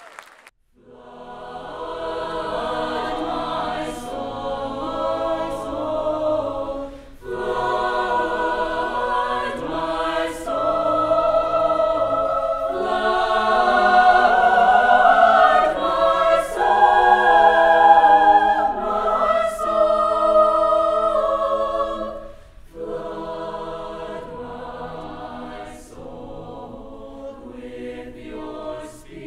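A cappella choir singing sustained chords in several phrases, growing louder toward the middle and dropping to a softer passage for the last third.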